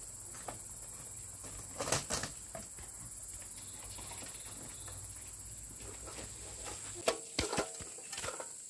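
Insects chirping steadily in a high-pitched drone, with a few short knocks about two seconds in and a cluster more near the end.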